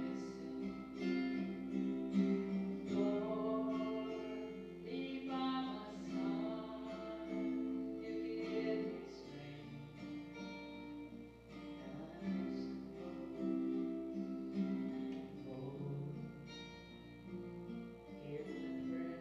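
Music: a voice singing with guitar accompaniment.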